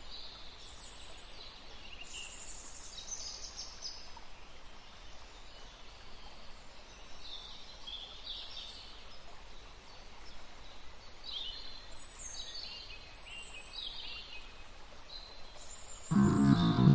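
Many wild birds calling at once, a scatter of short high-pitched chirps and twitters over a faint background hiss. Music comes in loudly near the end.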